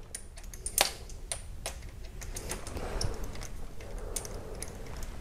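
Faint, irregular light metallic clicks and ticks of a reverse Torx socket and bolt as the second bolt holding the bank 2 VVT solenoid is unscrewed by hand.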